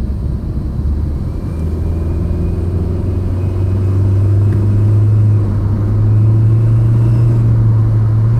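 Scion xA's 1.5-litre four-cylinder engine heard from inside the cabin. Its drone rises in pitch as the car pulls away, then holds steady. A faint high whistle comes in over it from a turbo-whistle insert fitted in the exhaust.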